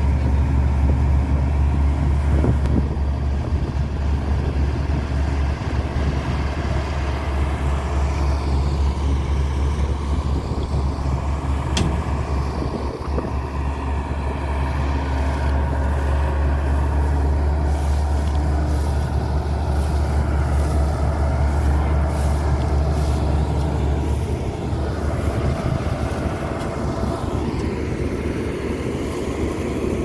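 Combine harvesters running in a rice field: a steady, loud, low engine drone.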